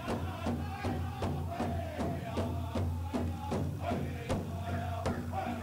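Background music with a steady, quick beat under a sustained melody line.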